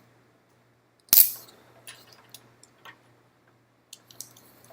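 A sharp click about a second in as a crimping tool is squeezed shut on an RJ45 plug on a Cat5 cable, followed by a few faint small ticks of the tool and cable being handled.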